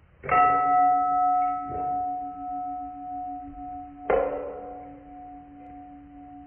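Struck metal ringing like a bell. A sharp strike is followed by a lighter tap about a second and a half later, then a second strike about four seconds in. Each strike leaves a long ringing hum that fades slowly.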